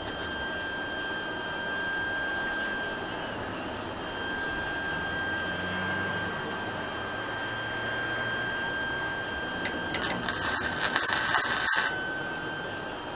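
MIG welder arc crackling and sputtering in one short weld of about two seconds on the go-kart's steel seat frame, starting about ten seconds in and cutting off suddenly. Before it, a steady high whine and hiss.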